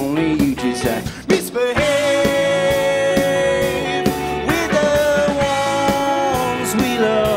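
A live rock band playing: a man sings lead over electric guitar and a drum kit, holding long notes.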